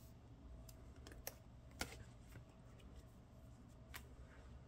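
Faint handling of plastic: a photocard in a clear sleeve is slid into a binder's plastic pocket page, giving a few soft clicks and rustles, the sharpest about two seconds in, over a quiet room hum.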